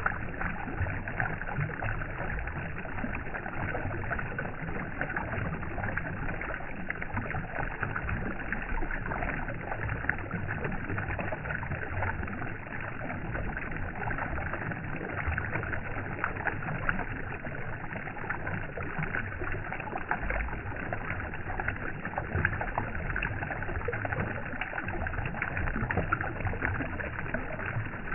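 Steady running water with many small splashes and sloshes, even and unbroken throughout.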